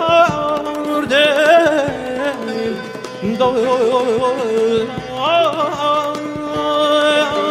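Persian song playing as background music: a wavering, ornamented melody line over hand-drum strokes.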